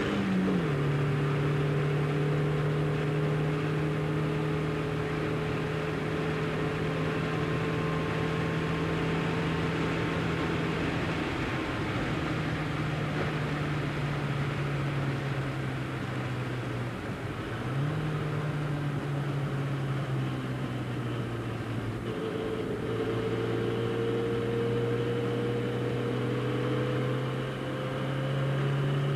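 The 1275cc A-series four-cylinder engine of a modified Austin-Healey Sprite, heard from inside the cabin while it laps a wet circuit. The engine note slides slowly in pitch, drops just after the start and steps up sharply about 18 seconds in. Under it runs a steady hiss of tyres and spray on the wet track.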